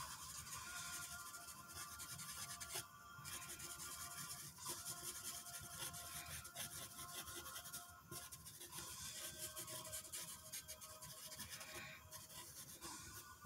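A pen tip scratching and rubbing on paper in quick strokes while inking a drawing, stopping briefly about three, eight and twelve seconds in.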